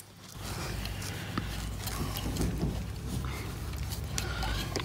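Steady low rumble with a few faint clicks and rustles as pliers work the end of a cut electrical wire at a plastic junction box.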